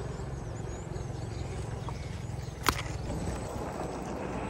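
A scale RC off-road truck with a 540-size 35-turn brushed motor crawling over gravel and dry grass, its motor and drivetrain making a steady low hum under the crunch of tyres on stones. There is one sharp click about two-thirds of the way through.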